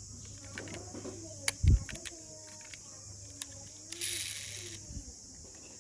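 Small clicks and rattles of a die-cast metal toy car being handled. A dull thump comes about a second and a half in, and a short whirring hiss about four seconds in as a wheel is spun by finger.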